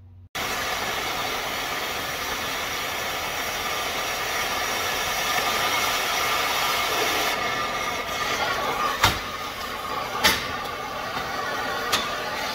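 Oxy-fuel cutting torch on a pattern-tracing machine hissing steadily as it burns through Hardox wear plate, with three sharp pops in the last few seconds.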